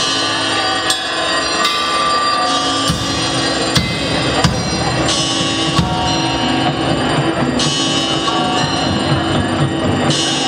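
Live rock band playing: electric guitars and bass over a drum kit with repeated cymbal hits. The low end fills out about three seconds in.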